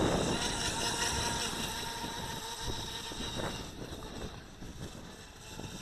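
Small brushed electric motor of a WLtoys WL912 RC speed boat running at speed with a steady high whine that fades as the boat moves away. Gusts of wind on the microphone near the start and about three and a half seconds in.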